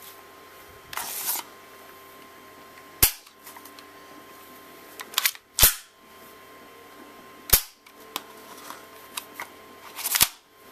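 Metal slide and action of a CO2 airsoft Desert Eagle pistol being worked by hand: four sharp metallic clacks about two to three seconds apart, with a short sliding rasp about a second in and smaller clicks between.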